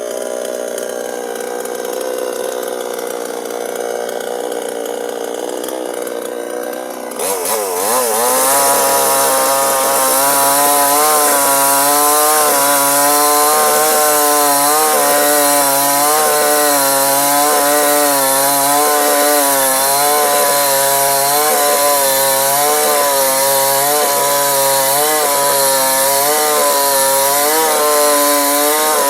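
Chainsaw engine running at a steady lower speed, then opening up suddenly about seven seconds in. It holds at high revs to the end, its pitch wavering up and down as it cuts into the wood of the tree under load.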